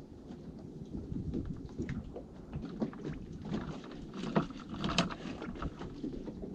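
Small boat at rest on the water: a steady low rumble with scattered small knocks and taps of gear being handled on the bait board, the two sharpest about four and a half and five seconds in.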